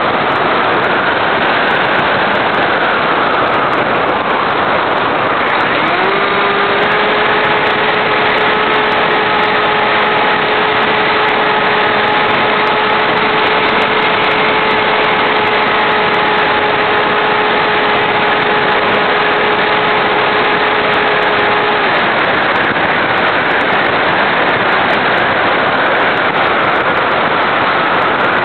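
Wind rushing over the microphone of an RC airplane's onboard camera in flight. The plane's motor comes in with a steady whine about six seconds in, rising briefly in pitch as it spools up, and cuts off around twenty-two seconds in, leaving only the wind noise.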